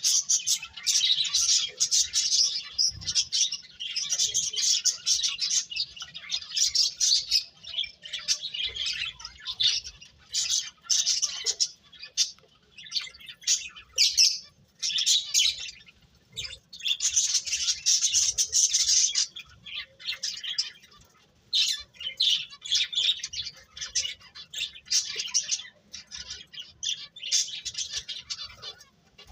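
Birds chirping and twittering in rapid, high-pitched bouts that come and go every few seconds with brief pauses between.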